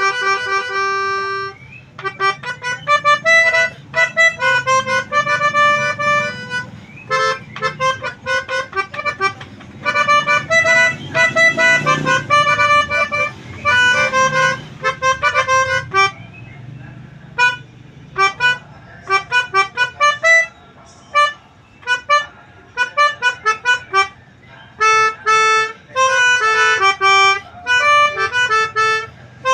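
Basuri 'telolet' bus horn, a multi-trumpet horn playing a tune in quick runs of short, reedy notes with brief pauses between phrases. A low rumble runs underneath.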